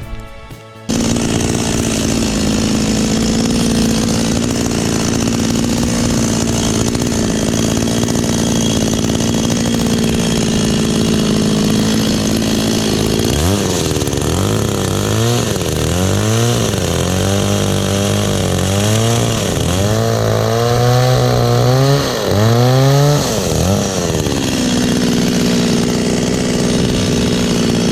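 Kyoritsu two-stroke chainsaw engine running steadily at high revs. Midway, for about ten seconds, the revs repeatedly drop and climb again before it settles back to a steady high speed.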